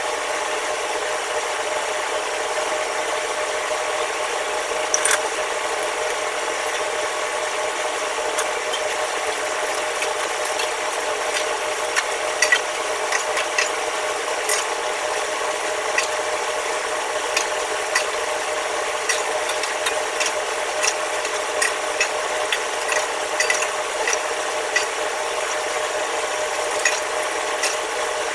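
Scrubbing and clinking on a stainless-steel wok range: irregular light metal clicks and scrapes, sparse at first and coming about once or twice a second in the second half, over a steady mechanical hum.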